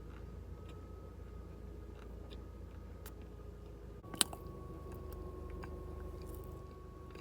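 Mouth chewing cornstarch: faint crunching clicks, with one sharp click about four seconds in, over a low steady hum.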